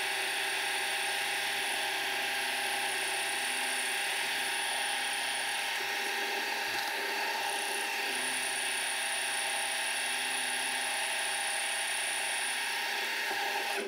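Milling machine running steadily as a spiral end mill cuts into a small metal workpiece held in the vise under flood coolant. The sound is an even machining noise made of several constant tones, unchanging throughout.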